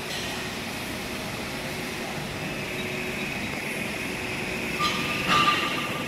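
Steady hissing machine noise with a faint high whine from a CNC plasma cutting machine running. Near the end a short beep and a few louder knocks come in.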